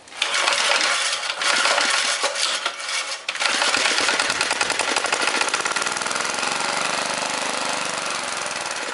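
Briggs & Stratton small gasoline engine being cranked and catching on ether about three seconds in, then running with a fast, even firing that eases off a little near the end. It is running on the sprayed starting fluid rather than holding on its own, and the owner judges it needs more choke.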